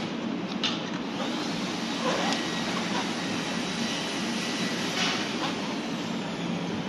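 A steady whooshing hum, like a fan or other running machine, with plastic packaging wrap rustling and a few small handling clicks as the wrap is pulled off a new electric scooter and its parts are moved.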